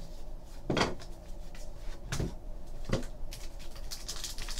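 Trading cards being handled: a few light knocks as the stack of cards is worked, then the foil wrapper of a hockey card pack crinkling from about three seconds in.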